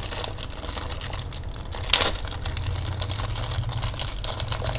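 Thin plastic packaging bag around a phone charger crinkling as it is handled, with one louder crackle about two seconds in.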